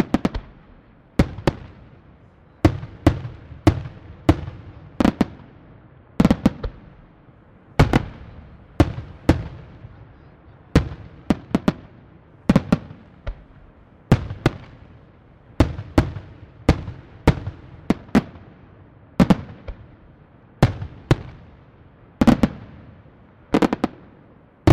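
Aerial firework shells bursting in steady succession, a sharp bang every second or so, sometimes two close together, each followed by a rolling echo that fades. The loudest bang comes right at the end.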